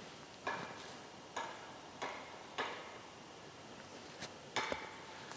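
Footsteps in snow: four separate steps in the first three seconds, a pause, then two more near the end.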